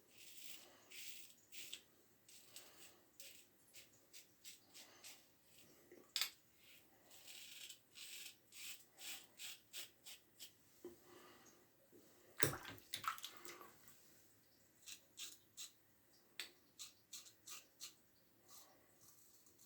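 Gem push-button single-edge safety razor scraping through lathered stubble in many short, quick strokes, some in rapid runs. A single louder knock comes about twelve seconds in.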